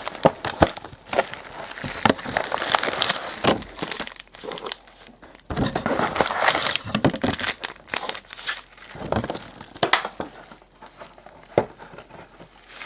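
Plastic wrapping crinkling and tearing in repeated bursts with sharp clicks as a sealed trading-card box is unwrapped and opened, going quieter near the end.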